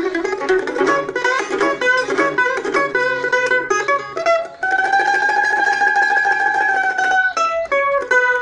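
Homemade mandolin played solo: a run of quick picked notes, then one long held note from about halfway through to near the end, then quick notes again.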